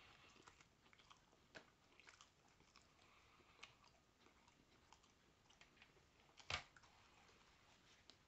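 Faint chewing and biting on a bean, rice and cheese burrito, with scattered small mouth clicks and one louder click late on.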